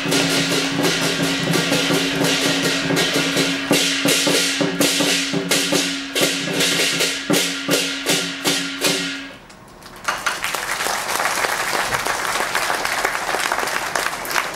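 Lion dance percussion, drum and clashing cymbals beating out a fast rhythm, which stops about nine seconds in. After a brief lull, audience applause follows.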